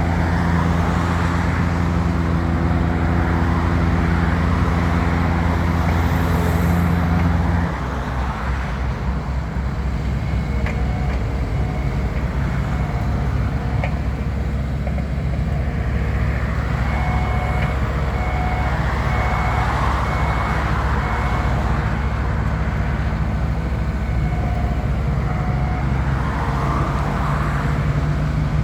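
Skid steer loader engine running steadily at high revs, dropping to a lower note about eight seconds in. Short repeated beeps sound through the second half.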